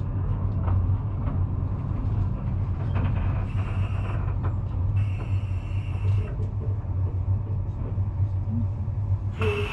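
Ikawa Line train heard from inside the passenger car: a steady low rumble with scattered clicks from the running gear. Two short high-pitched tones come about three and a half and five seconds in.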